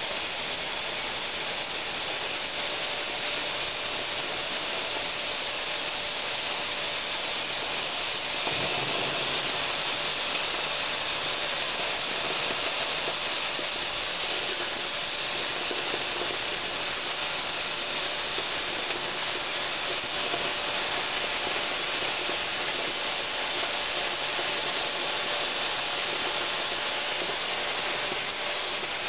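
Oxy-fuel cutting torch on a CNC cutting table hissing steadily as it cuts through 15 mm steel plate, a little fuller from about eight seconds in.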